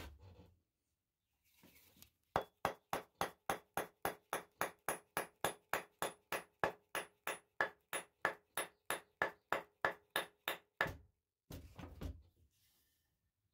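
A quick, even series of about thirty knocks, three or four a second, as a hatchet head is driven onto a new oak handle to test the fit; each knock carries a faint metallic ring from the steel head. A brief scuffle of handling follows near the end.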